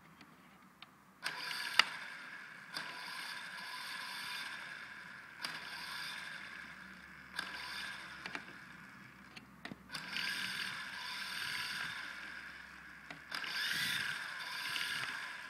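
Small electric motors of a coaxial toy RC helicopter whining as its twin rotors spin up. The whine rises and eases in about six surges, each opening with a sharp click.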